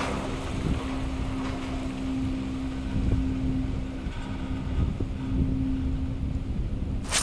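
Gondola cabin riding along its haul cable: a steady low rumble with a constant hum and faint ticks, and one sharp click near the end.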